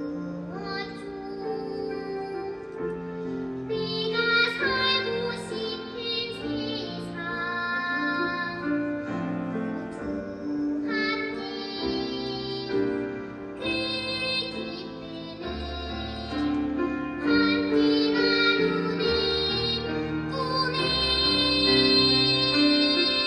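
Children's choir singing a gentle song with piano or keyboard accompaniment, the voices swelling louder toward the end.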